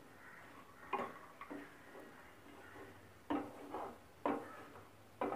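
Wooden spatula knocking and scraping against a metal pan while stirring sprouted green gram: about five sharp, irregular knocks with a short ring after each.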